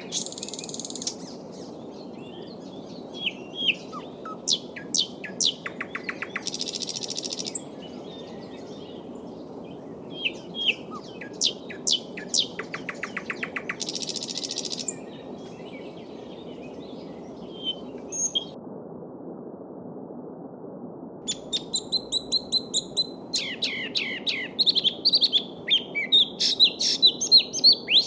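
Small songbirds chirping and singing in short phrases over the steady babble of a shallow stream. A buzzy, rattling trill comes twice in the first half, and near the end a bird sings a fast run of repeated chirps.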